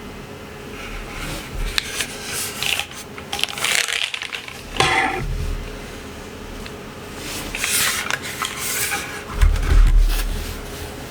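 Typing on a Geonworks W1-AT mechanical keyboard built plateless, with lubed Gateron x Geon Raw linear switches. Keystrokes come in two runs with a pause midway, and a heavier low thump near the end.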